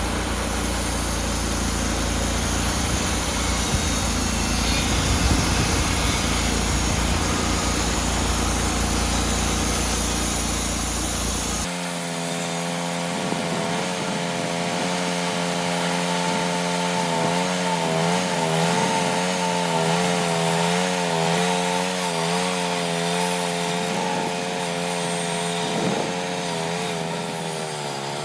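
Sawmill running with its band blade cutting a slab from a big locust log. About twelve seconds in, the sound changes abruptly from a dense, low-heavy sawing noise to a wavering, pitched engine tone.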